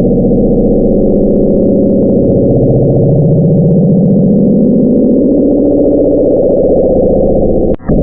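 The 'Bloop' underwater hydrophone recording, played back sped up: a loud, low, wavering drone with one band rising in pitch through the middle. It breaks off briefly near the end and then resumes. NOAA attributed the sound to a large iceberg breaking apart.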